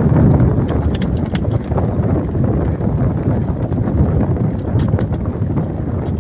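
Wind buffeting the microphone, a steady low rumbling noise, with a few faint clicks and taps about a second in and again near five seconds.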